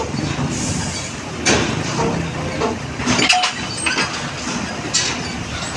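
Heavy truck rumbling low and steady as it hauls a loaded lowboy trailer up a steel ship's ramp. Sharp metallic clanks come through about a second and a half in, in a quick cluster a little past the middle, and once more near the end.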